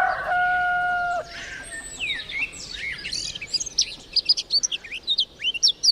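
A rooster's crow, its long held last note ending about a second in, followed by small birds chirping and twittering in quick, scattered calls.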